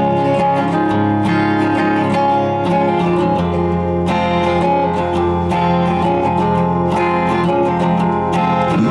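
Live band music without vocals: guitar strumming chords at a steady rhythm, with held chord tones underneath.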